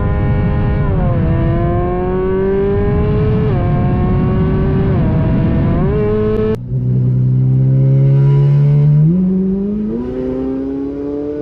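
Ferrari engine with a loud aftermarket exhaust accelerating hard, its pitch climbing with the revs and dipping briefly at each gear change. A bit past halfway the sound cuts abruptly, and the engine then pulls again from lower revs and climbs.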